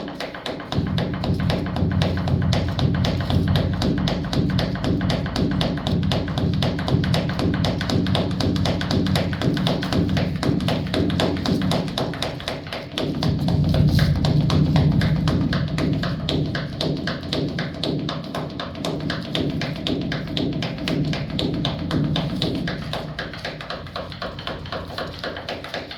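Large Korean Buddhist bronze temple bell (beomjong) struck with a wooden log twice, about a second in and again about 13 s in. Each stroke gives a deep, sustained hum that slowly fades before the next.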